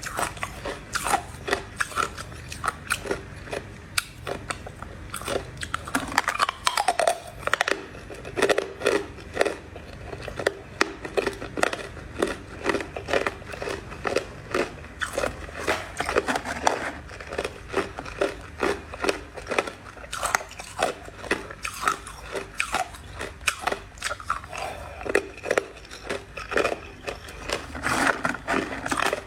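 Crushed ice being bitten and chewed, a fast, irregular run of sharp crunches that keeps on without pause.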